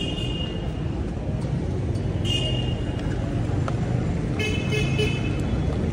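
Steady road-traffic rumble with car horns honking three times: once at the start, once about two seconds in and once near the end.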